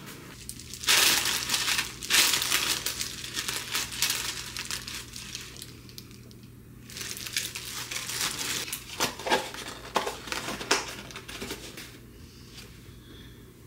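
Thin plastic crinkling and rustling in two long stretches, starting about a second in and again from about seven seconds, with scattered small clicks and taps as disposable lunch boxes are handled.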